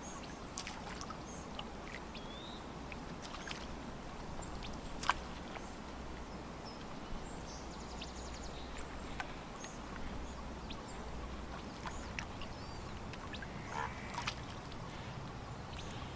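Lakeside ambience: water lapping against the shore under a steady low rush, with scattered short bird chirps and calls and a sharp click about five seconds in.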